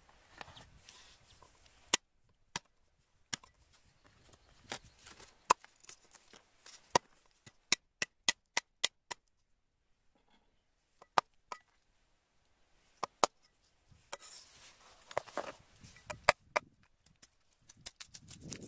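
Kitchen knife chopping ginger and lemongrass on a wooden chopping block cut from a tree trunk: a string of sharp chops at uneven spacing, a quick run of them about eight seconds in, a short pause, then more chops with a rustling noise near the end.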